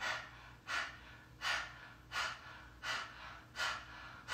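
A woman doing forceful, rhythmic breaths through a wide-open mouth with the tongue stuck out, about three breaths every two seconds. It is a tongue-out breathing exercise in kundalini yoga, meant to push the air out of the lungs.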